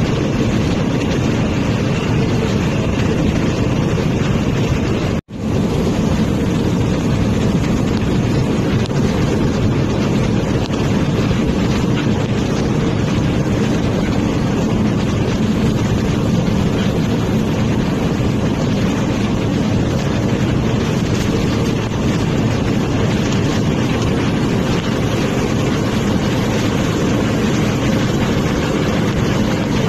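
Steady engine and road noise heard inside a bus cabin while the bus drives at speed. The sound cuts out for a split second about five seconds in.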